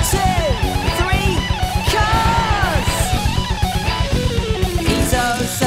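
Rock music with electric guitar over a fast, steady beat, changing to a new section near the end.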